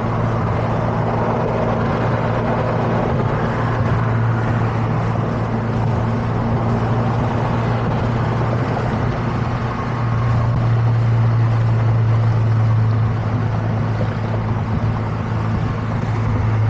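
Toyota GR86's flat-four engine through an HKS Spec-L exhaust, droning steadily at a constant cruise, mixed with wind and road noise heard inside the cabin with the windows down. The drone gets a little louder about ten seconds in.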